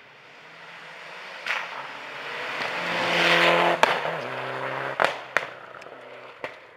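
Mitsubishi Lancer Evolution rally car with a turbocharged four-cylinder engine approaching at speed on gravel and passing close by. The engine and the hiss of sprayed gravel build to a loud peak about three seconds in. The engine note then drops and fades as the car pulls away, with several sharp cracks as it goes past.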